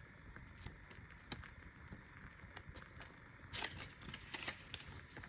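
Faint paper rustling with scattered light ticks, and a short louder rustle about three and a half seconds in.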